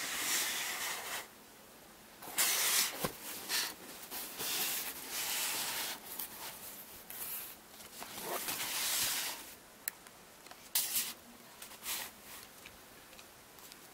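Cardboard shipping box being torn open by hand, with crumpled paper packing rustled inside it. The sound comes as a string of short tearing and crinkling bursts with brief pauses between them.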